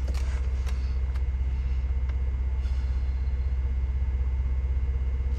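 Steady low rumble with a few light clicks in the first second or so.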